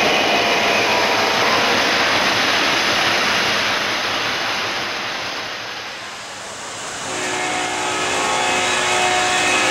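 Model diesel train on three-rail track running past close by: a steady rushing rumble of the train and its wheels that fades out around six seconds in. A few steady pitched tones start about seven seconds in.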